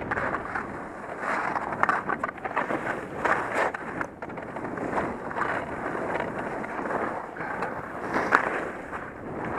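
Skis sliding and scraping over packed snow through a series of turns: a continuous rough hiss that swells and scrapes harder on each turn, with wind on the helmet camera's microphone.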